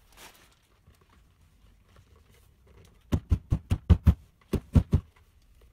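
About ten quick knocks as T-section edge trim is tapped home into the slot routed along the edge of a laminated furniture-board door: a run of seven, a short pause, then three more.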